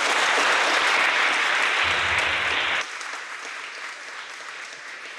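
Audience applauding, loud for about three seconds, then dropping off suddenly and fading away.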